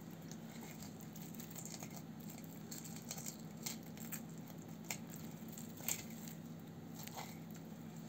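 A knife cutting along a pike to take off a fillet: scattered faint clicks and scrapes over a steady low hum.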